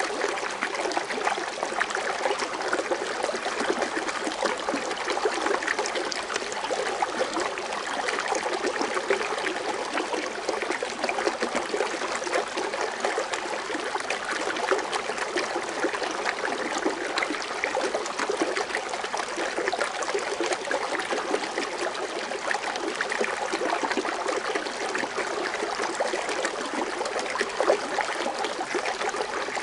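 Foaming water fountain: water splashing and trickling steadily.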